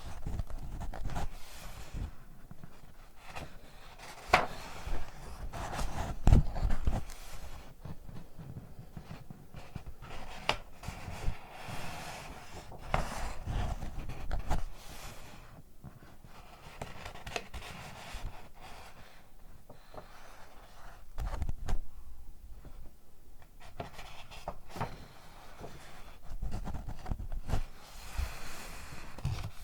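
Close-miked ASMR handling of paper boxes, wrapped candies or books: irregular rubbing and rustling broken by sharp taps and clicks, the loudest around four and six seconds in.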